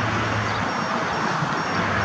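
Electric fans of a DIY RC hovercraft running steadily, a continuous whirring noise with a low hum under it.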